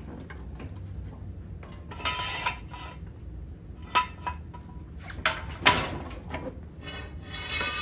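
Metal clanking and scraping as a Walker mower is pried up onto a jack stand: several sharp, ringing clanks, the loudest a little before six seconds in, and a grinding metal scrape near the end, over a steady low hum.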